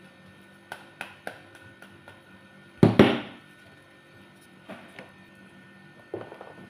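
A metal rod striking the rind of a pomegranate half to knock the seeds loose into a bowl: three light taps, then two hard whacks close together about three seconds in, then a few lighter taps near the end.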